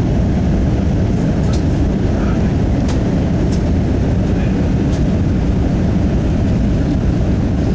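Steady cabin noise inside an Airbus A320 airliner descending on approach: a loud, even rumble of engines and airflow, with a few faint clicks.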